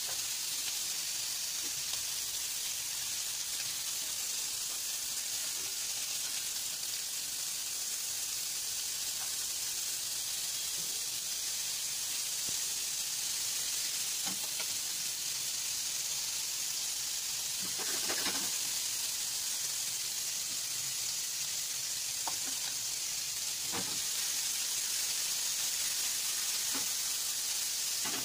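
Longganisa sausages frying in hot oil in a pan, sizzling steadily with a few faint pops.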